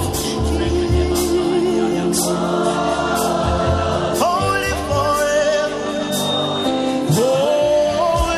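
Live gospel worship music: a band with drums, and voices singing long held, gliding notes.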